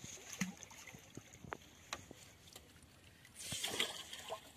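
Small water splashes and scattered light knocks, with a louder burst of splashing about three and a half seconds in.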